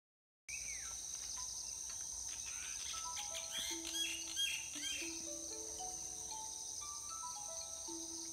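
Steady high-pitched insect drone, typical of crickets or cicadas, with birds chirping and calling, cutting in abruptly about half a second in. From about three and a half seconds, soft background music plays a slow melody of long held notes.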